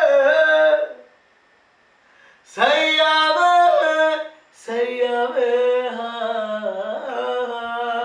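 A man singing a Hindi song unaccompanied, in a full, strained high voice with ornamented runs. A held note ends about a second in, and after a brief pause comes a short phrase. Then one long note is drawn out with wavering ornaments to the end.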